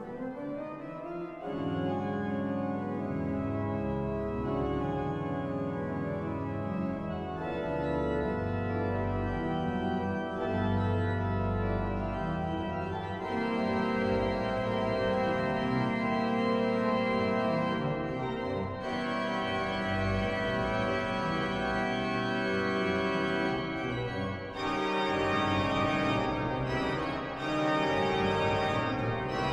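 The 1727 Müller pipe organ playing full, sustained chords, with a deep pedal bass entering about a second and a half in. The sound grows brighter and fuller twice in the second half as more stops are drawn.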